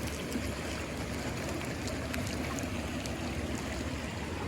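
A shallow stream of clear water running steadily over stones, an even rushing and trickling with a few faint small ticks.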